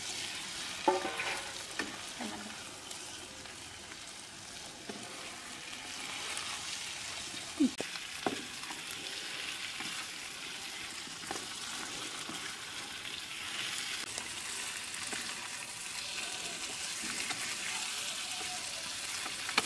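Boiled potato pieces frying in spiced oil in a kadhai, sizzling steadily as they are stirred with a wooden spatula. A few sharp knocks from the spatula against the pan stand out, the loudest a little before the halfway point.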